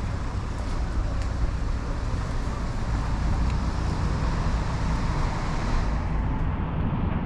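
Street traffic on a wet road: a car's tyres hiss as it passes, over a steady low rumble, and the hiss fades away about six seconds in.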